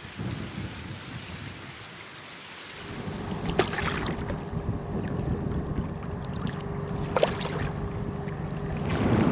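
Wind on the microphone and choppy water splashing around an inflatable kayak, growing louder about three seconds in, when a steady low hum joins. Two short, sharp splashes stand out over it.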